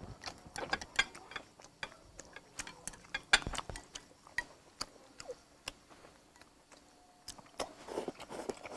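A person eating close to a clip-on microphone: chewing and lip smacks, with small sharp clicks of chopsticks against a ceramic rice bowl. The clicks come thick for the first few seconds, then thin out into a short lull.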